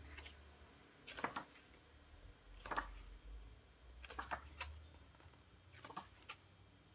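Pages of a large-format paperback book being turned by hand: about four short paper rustles a second or so apart.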